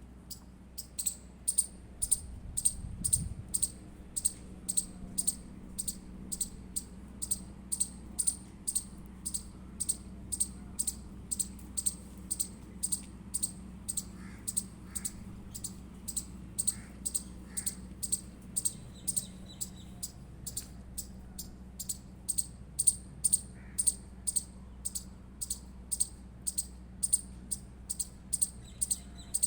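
Indian palm squirrel giving its alarm chirp: a steady run of short, high-pitched chips, about two to three a second, repeated without a break.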